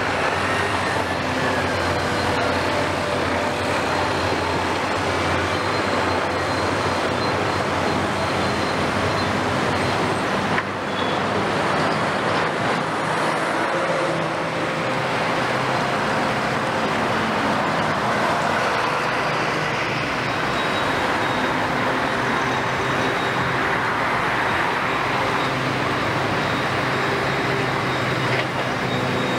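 Steady heavy diesel engine noise from demolition excavators at work, mixed with trucks passing close by.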